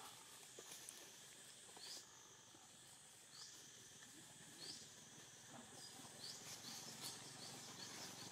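Near silence: faint outdoor ambience with a steady high insect drone and short rising chirps, a few at first and then several in quick succession near the end.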